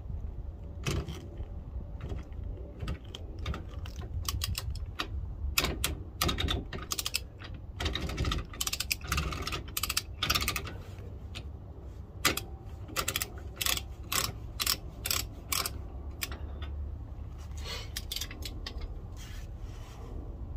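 Socket on a torque wrench clicking and clunking irregularly against the rear axle nut of a Ford Transit hub as the nut is worked loose. The clunking is the sign of a socket not pushed on hard enough; seated firmly, the nut turns smoothly without it.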